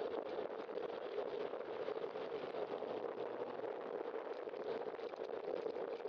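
Steady rush of wind and road noise at a bicycle-mounted camera while riding along a street: an even noise that holds level, with no distinct events.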